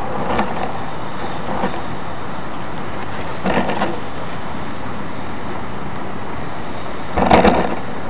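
Steady rushing of running water. A few brief knocks break through it, the loudest about seven seconds in.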